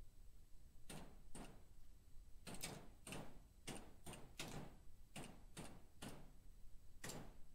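Faint typing on a computer keyboard: about a dozen separate keystrokes in short, uneven runs, as a search phrase is typed.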